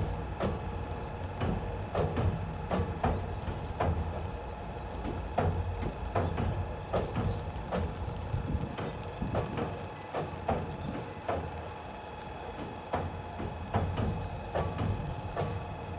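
Slow-moving train passing, its wheels knocking over rail joints about once or twice a second over a steady low rumble.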